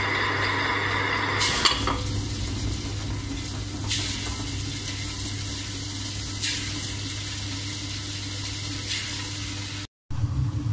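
Electric tabletop wet grinder running with a steady motor hum while soaked rice and urad dal are added to its drum, with wet sloshing and a few louder clatters about four, six and a half and nine seconds in. The sound drops out briefly near the end.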